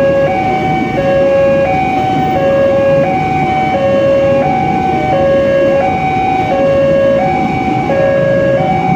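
Level-crossing warning alarm sounding its two-tone signal, a higher and a lower note alternating evenly about every 0.7 seconds, over the running noise of a KAI Commuter electric train passing over the crossing.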